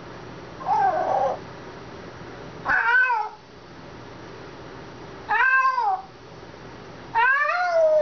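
African grey parrot giving four drawn-out, cat-like meow calls about two seconds apart, each rising and then falling in pitch.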